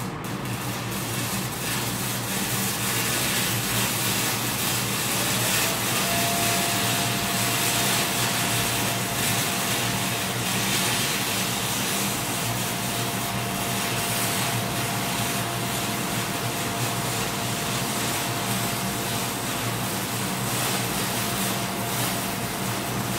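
Stick-welding arc from a 6011 rod run off a TIG welder's torch, crackling and sizzling steadily through a long continuous bead. A thin steady whine joins about five seconds in, over a low steady hum.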